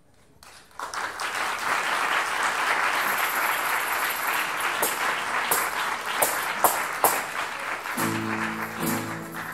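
Audience applause breaking out about a second in and going on steadily, with some sharper single claps. About eight seconds in, the tuna's plucked strings strike up chords under the clapping.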